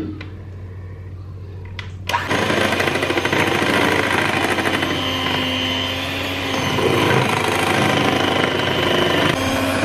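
Electric hand mixer beating cake batter in a bowl: a low hum at first, then about two seconds in a sudden loud, dense rattling churn as the beaters work the batter, continuing steadily.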